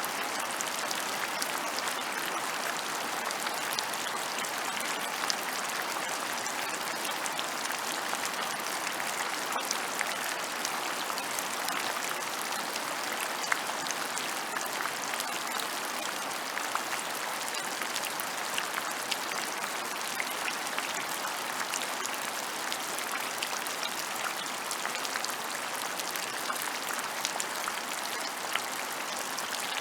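Steady rain falling, a dense hiss scattered with the ticks of individual drops.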